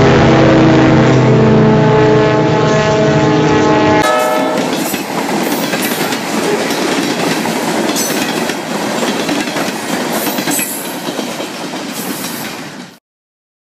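Freight locomotive's horn sounding a held chord over its diesel engine, then, about four seconds in, a sudden change to freight cars rolling past with wheels clicking over the rail joints. The sound cuts off abruptly about a second before the end.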